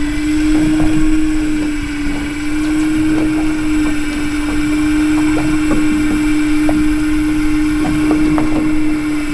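A motor aboard a small fishing boat humming steadily on one pitch, with light knocks and taps here and there.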